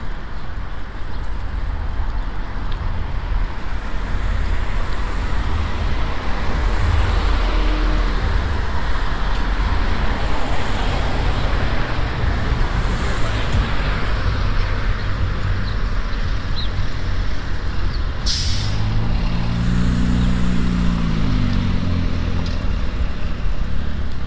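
Street traffic heard from a moving bicycle: a steady rush of passing cars, tyres and wind. About 18 seconds in there is a brief sharp hiss, and then a large engine's note rises and falls several times.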